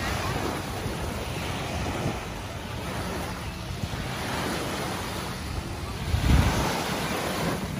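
Small bay waves breaking and washing up on a sandy shore, with wind noise on the microphone that swells briefly a little after six seconds in.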